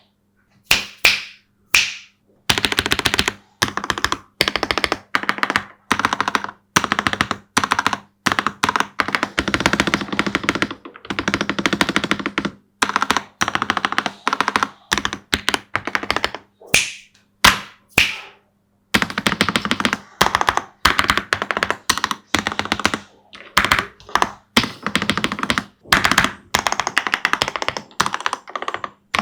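Typing on a Ganss GS3108T Pro full-size mechanical keyboard with factory-lubed switches: runs of rapid key clacks broken by short pauses. It includes a few single, louder strokes near the start and about halfway through.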